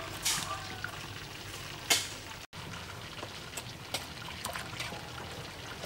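Kitchen knife cutting and scraping into a peeled green papaya over a steel bowl of water: a few sharp cuts, the loudest just under two seconds in, with water dripping and sloshing in the bowl.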